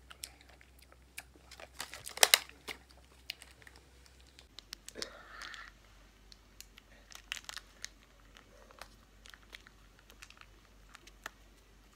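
Plastic and foil packaging crinkling as a clear plastic berry clamshell and a ketchup sachet are handled, with a loud burst of crackling about two seconds in. Scattered crinkles and small tearing sounds follow as the sachet is pulled open.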